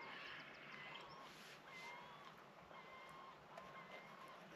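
Gulls calling faintly: short, flat-pitched calls repeated about twice a second.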